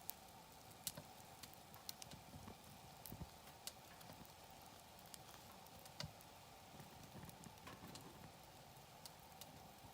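Wood campfire crackling quietly, with irregular sharp pops and snaps, a few of them louder, over a faint steady hiss.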